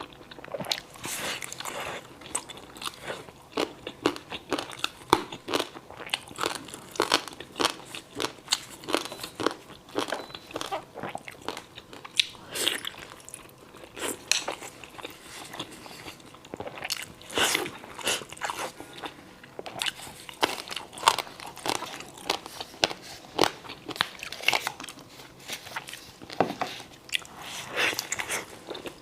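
Close-miked chewing and crunching of food: irregular crisp bites and mouth sounds, with no talking.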